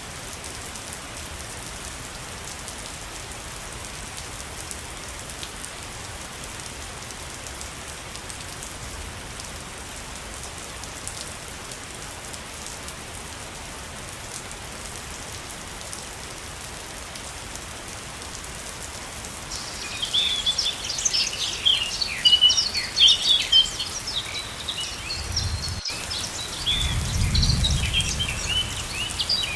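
Waterfall water rushing with a steady, even hiss. About two-thirds of the way in, songbirds start chirping rapidly over it, and a brief low rumble comes near the end.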